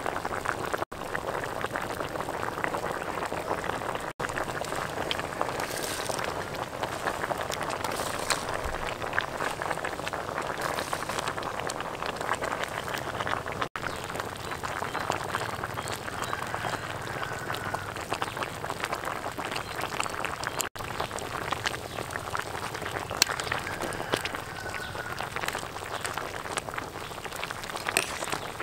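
A large pot of meat and vegetable stew at a hard rolling boil, bubbling and popping steadily, with four very brief dropouts.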